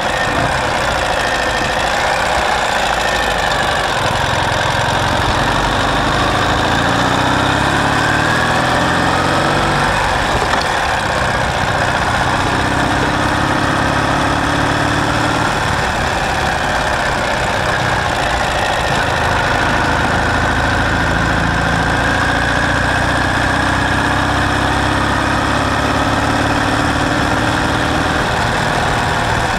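Sidecar motorcycle engine running steadily, its pitch rising and falling with the throttle.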